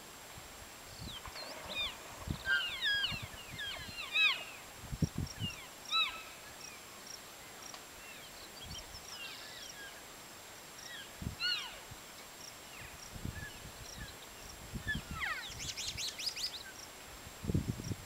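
A herd of elk cows and calves chirping and mewing: short, high squeaky calls that come in clusters, some bending up or down in pitch. Scattered low thuds come in between.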